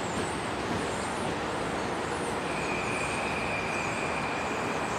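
Steady rumble of an electric commuter train pulling away out of sight, mixed with traffic noise. A thin, steady high whine comes in about halfway through and holds.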